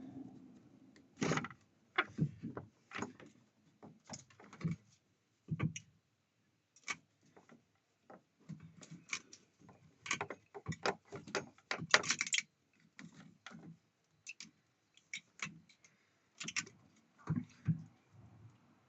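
Irregular clicks, knocks and rattles of the radiator and plastic fan shroud being worked and wiggled to lift the radiator out of a Suzuki Jimny's engine bay, the radiator's drain plug snagging on the shroud. The loudest cluster of knocks comes about halfway through.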